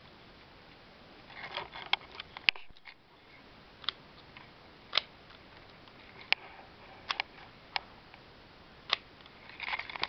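Lego plastic pieces clicking and rattling as a Lego puzzle box is handled and its sliding parts are moved. There is a cluster of clicks about a second and a half in and another near the end, with single sharp clicks in between, over a faint steady hiss.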